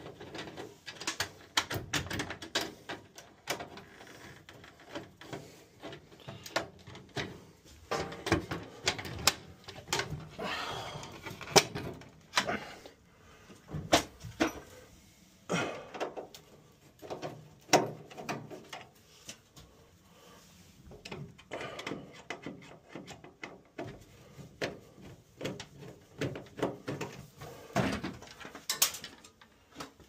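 A screwdriver turning out the cover screws of an AO Smith tankless water heater, and the unit's sheet-metal front cover being handled. It gives irregular clicks and knocks, with a stretch of scraping about ten seconds in.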